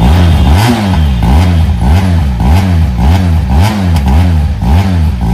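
Benelli TRK 502X's parallel-twin engine revved in quick repeated throttle blips, about two a second, the exhaust note rising and falling with each blip.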